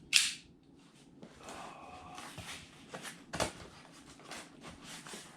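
A cardboard shipping box being opened by hand: a short sharp rip near the start, then irregular rustling, scraping and knocking of cardboard and packing material.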